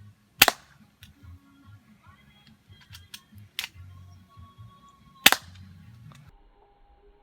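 M.20A airsoft pistol firing three sharp single shots a few seconds apart, with a few fainter clicks between the second and third.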